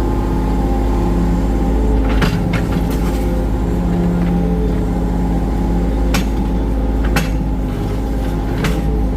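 Hitachi ZX35 mini excavator's diesel engine running steadily, with a few sharp metallic clanks.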